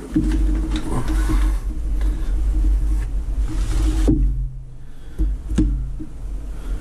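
Slabs of bowhead whale maktak, the skin and blubber, being handled and set down on cardboard: several sharp knocks and thuds, with rustling in between. Under them runs a steady low hum.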